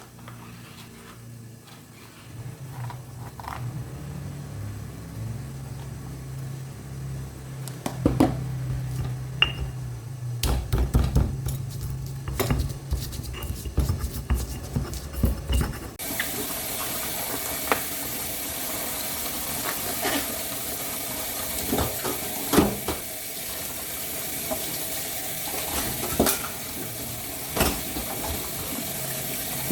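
Kitchen tap running into a sink, turned on about halfway through, with knocks and clinks of pots or dishes. Before it come a low hum and scattered knocks.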